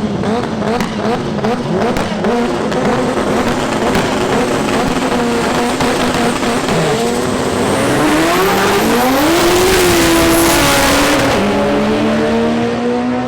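Front-wheel-drive drag car's engine revving in quick blips, then held at steady revs, then climbing in pitch under acceleration, with a gear change about eleven seconds in after which the revs climb again.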